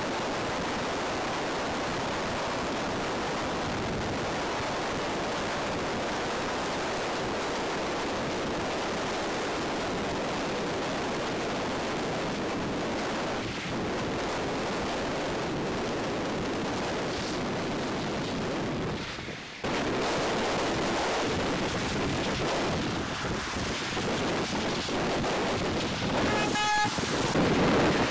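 Steady rushing noise of wind and heavy rain on a car driving along a wet motorway, with tyre spray. It briefly drops away about nineteen seconds in, then returns a little louder and more gusty, with a short high tone near the end.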